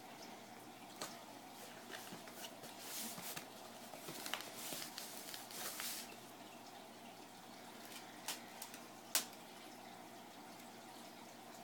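Cardboard shipping box being handled: faint rustles and scrapes as hands press its flaps shut, with a few light knocks and one sharp tap about nine seconds in.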